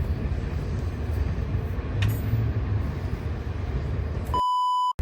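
A steady low rumble, then near the end a steady 1 kHz electronic bleep lasting about half a second, which replaces all other sound while it plays: a censor bleep laid into the sound track.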